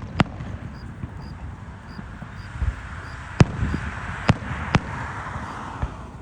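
Fireworks going off: two sharp bangs right at the start, then three more spaced under a second apart midway, with a crackling hiss swelling around them.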